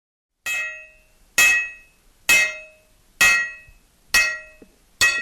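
Six evenly spaced hammer blows on an anvil, a little under one a second, each a sharp metallic strike with a bright ring that dies away in about half a second.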